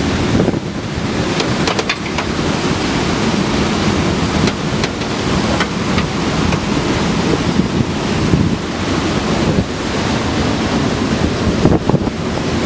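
Strong mountain-summit wind gusting over the camera microphone: a loud, continuous, surging wind noise that rises and falls with the gusts.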